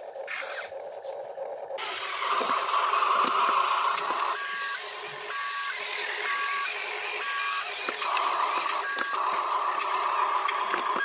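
A toy RC construction vehicle's electric drive whining steadily, with a run of short electronic beeps like a reversing alarm sounding about every second in the middle.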